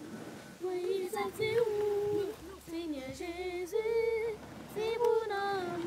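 One female voice singing a slow melody in long held notes that slide between pitches, in several phrases with short breaths between them.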